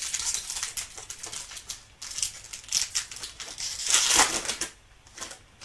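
Foil trading-card pack wrapper being torn open and crinkled by hand, a crackly rustle with many small clicks that is loudest about four seconds in.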